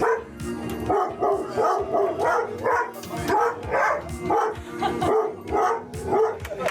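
A dog barking in a rapid, steady run of short, pitched barks, about three a second.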